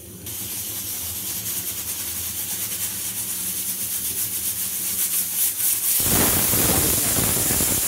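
Pressure cooker whistle venting steam: a hiss that builds steadily, then bursts into the full loud whistle about six seconds in. This is the cooker's second whistle, the sign that the rice has cooked under pressure.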